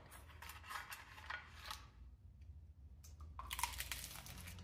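A bite into a crispy baked-mozzarella taco shell filled with shredded beef: a short run of crunching and crackling near the end, after faint clicks and rustles as the taco is lifted from its metal holder.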